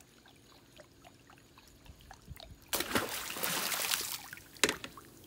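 Water rushing and splashing for about a second and a half as a mesh dip net is worked at the surface to scoop a shrimp, after a quiet start with faint small clicks. A single sharp knock follows shortly before the end.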